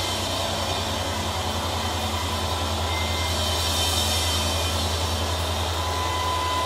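Steady low droning noise from effects pedals through the amplification, a hum with a fast flutter under a hissing wash.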